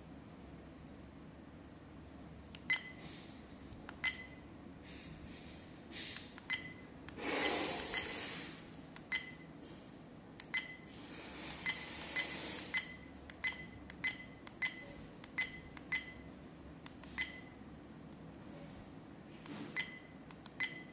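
A dash cam's key beeps: about twenty short, identical beeps at irregular intervals as its menu buttons are pressed one after another. Two short rushes of noise come about seven and eleven seconds in.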